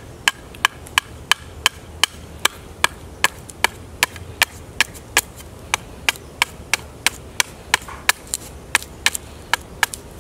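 A chopper knife's steel blade striking a wooden bow stave in quick, even strokes, about three a second, chopping contour into the bow's handle area and lifting curling chips.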